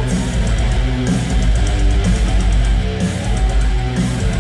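Metalcore band playing live: a loud riff on distorted electric guitars with bass and the full band, heard from in the crowd.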